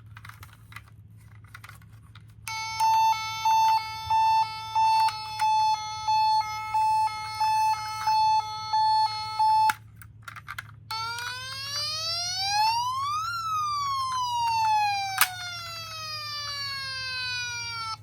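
Toy ambulance's electronic siren through a small speaker. First comes a two-tone siren pulsing about one and a half times a second for roughly seven seconds. After a brief pause, one long wail sweeps up and then slowly back down, with a sharp click partway through the fall.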